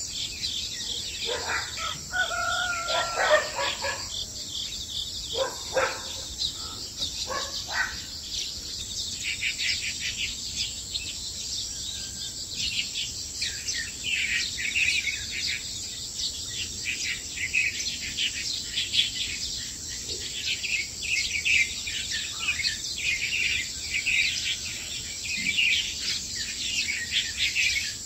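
Countryside dawn chorus: many small birds chirping densely and continuously over a steady high insect drone. Several lower, louder calls from a bigger bird break in during the first eight seconds.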